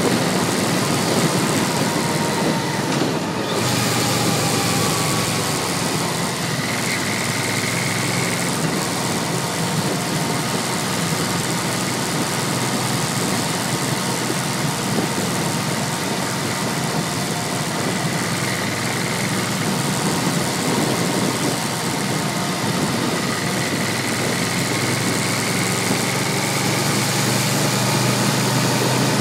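Yamaha V-MAX 1200's V4 engine running steadily at low revs while riding, under a dense rush of wind and road noise on the onboard microphone.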